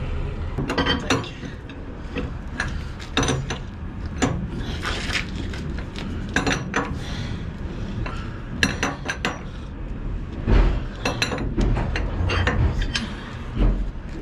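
Metal tools clinking and clanking at a lorry's wheel as a wheel brace with a long extension bar is fitted to the wheel nuts and leaned on. There are many sharp, irregular metallic knocks over a steady low rumble, with a couple of heavier thuds near the end.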